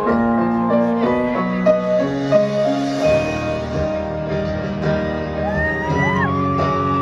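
Live concert music through an arena PA, heard from the audience: piano notes, with lower notes filling in about halfway and a high tone that glides up and holds near the end.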